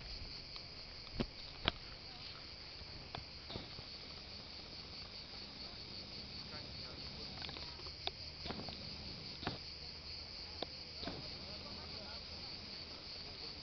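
Cicadas singing in a steady, high, pulsing chorus, with a few scattered sharp clicks on top.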